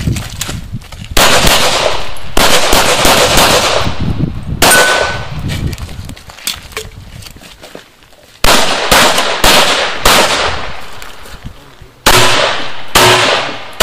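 Pistol shots fired in quick strings of several rounds each, with a gap of about three seconds in the middle before the shooting starts again.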